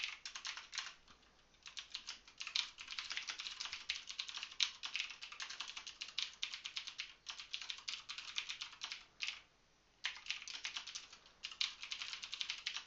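Typing on a computer keyboard: fast runs of key clicks, broken by two brief pauses, about a second and a half in and again past the nine-second mark.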